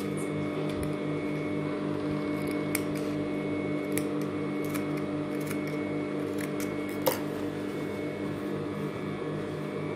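Electric sewing machine running as a seam is stitched: a steady motor hum with a fast even stitching rhythm, and a few sharp clicks, the loudest about seven seconds in. The stitching sound eases off near the end while the hum goes on.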